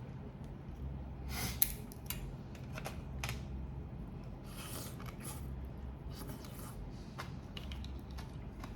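Shells of grilled prawns and crab being cracked and peeled by hand: irregular crisp clicks and scratchy cracks, with one sharper crack about one and a half seconds in.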